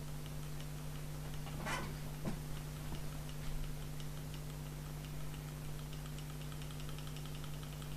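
Small conducting ball of a shuttling-ball apparatus bouncing back and forth between two high-voltage plates, giving a regular light tick each time it strikes a plate and swaps its charge. A louder scuffing noise comes about two seconds in.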